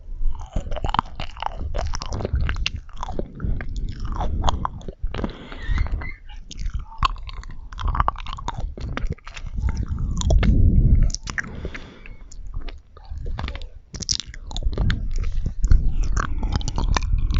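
Close-miked chewing and biting of marshmallows: a person's mouth sounds, with many small wet clicks and smacks in an irregular run.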